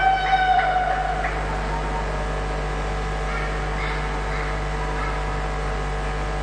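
Ice rink arena ambience with a steady electrical hum. In the first second or so the last few claps of the welcoming applause die away under a spectator's drawn-out high call, leaving only the hum.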